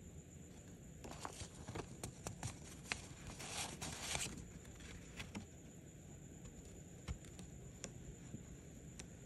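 Old paper banknotes being handled by hand: crinkling and sliding paper with small ticks starting about a second in and loudest around three to four seconds in, then a few scattered light clicks.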